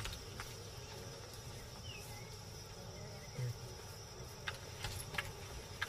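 Faint outdoor nature ambience: insects chirping steadily, with a few soft clicks.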